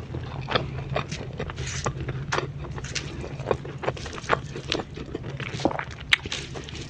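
A person eating close to the microphone: irregular crisp crunches and wet chewing clicks, about one or two a second, over a steady low hum.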